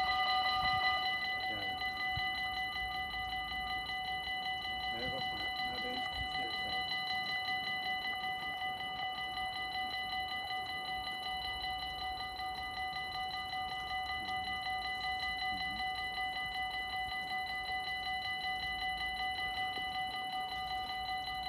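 Dutch level-crossing warning bells ringing in a fast, steady electronic ring. About a second in, one of the tones drops out and the ringing gets a little quieter, with the barriers down.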